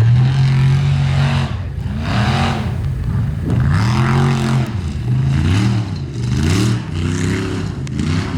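Formula offroad race buggy's engine revving hard in repeated bursts, its pitch climbing and dropping about once a second as the throttle is worked.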